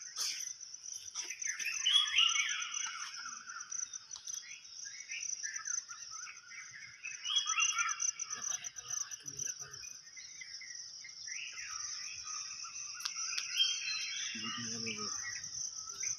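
A steady, high-pitched cricket-like insect trill, with many birds chirping and calling over it in the early-morning dawn chorus.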